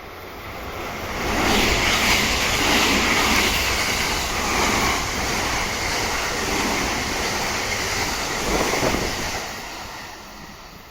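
A train passing at speed: the rush of wheels on rails swells over about a second and a half, stays loud for some eight seconds, then fades.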